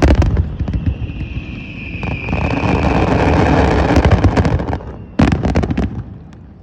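Fireworks going off: a few sharp bangs, a whistling tone, then a dense crackling rush that swells for about two seconds, followed by another volley of bangs about five seconds in that fades to scattered crackles.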